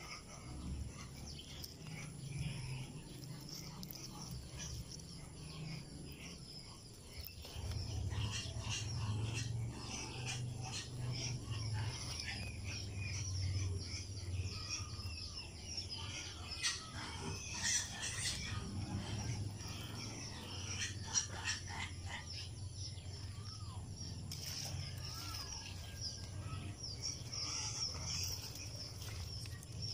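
Outdoor garden ambience: birds chirping, with leaves rustling and crackling as string bean vines are handled, over a low hum that grows louder about a quarter of the way in.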